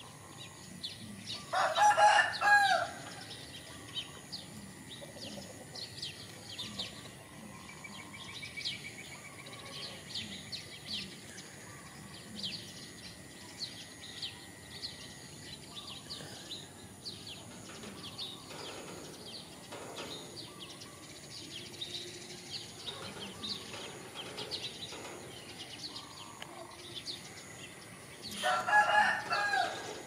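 A rooster crowing twice, once about two seconds in and again near the end, over the steady chirping of small birds.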